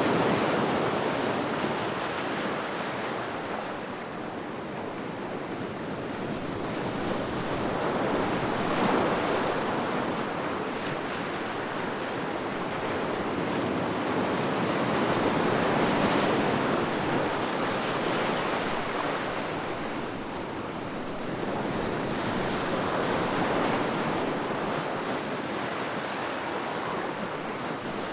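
Sea waves breaking and washing on the shore, the surf swelling and ebbing in slow surges every seven or eight seconds.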